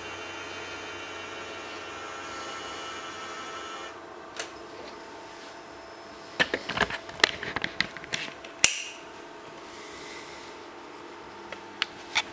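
Sony VPL-EX1 LCD projector's cooling fan running, a steady whir with several steady tones that drops away after about four seconds. A cluster of sharp clicks and knocks follows in the middle, with a few more clicks near the end.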